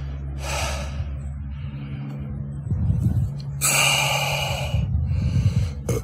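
A person's loud breaths, a short one just under a second in and a longer one about three and a half seconds in, over a steady low drone in noise-reduced audio.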